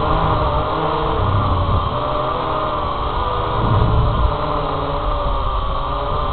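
Syma X8HG quadcopter's brushed motors and propellers whining in flight, heard from the drone's own onboard camera; the pitch wavers up and down as it manoeuvres. Underneath runs a low rumble of wind and prop wash, with a few stronger gusts.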